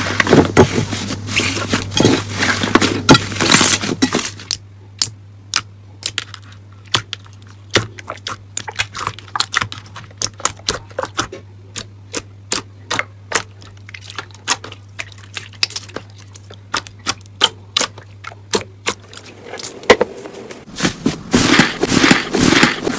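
Slime being pressed and worked by hand, making sticky crackling for the first few seconds. Then comes a long run of separate sharp pops and clicks, and dense crackling returns near the end.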